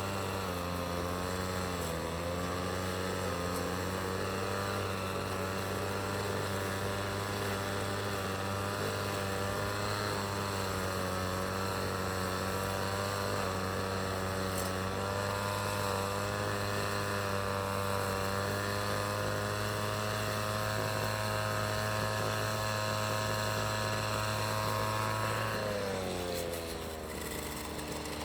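A vehicle engine running steadily in street traffic, a hum with a clear pitch that wavers slightly. Near the end its pitch falls and it gets a little quieter.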